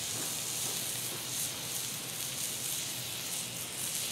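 Thick New York strip steak searing on a hot salt slab over charcoal: a steady sizzle.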